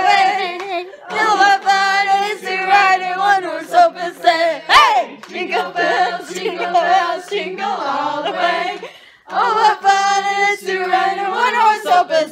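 Several women singing loudly together without accompaniment, holding notes, with an upward swoop of the voice about five seconds in and a brief pause near nine seconds.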